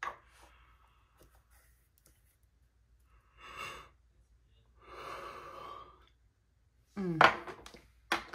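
A woman breathing out heavily twice in long, tired sighs, then a short voiced groan near the end.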